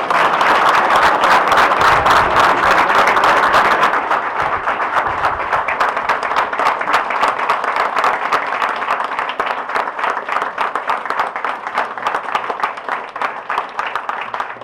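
A room full of people applauding, starting all at once and loudest in the first few seconds, then thinning out slowly.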